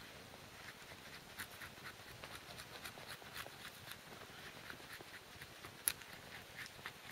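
Helle knife shaving a dry spruce block to smooth a flat face, a run of faint short scraping strokes with one sharper click about six seconds in.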